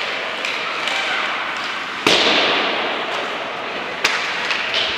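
Ice hockey game play over steady rink noise: a loud crack about two seconds in, trailing off in a fading hiss, and another sharp knock about four seconds in.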